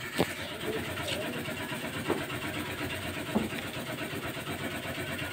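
An engine running steadily in the background, with a few light clicks as the LED bulb is pushed and turned into the motorcycle's tail-light socket.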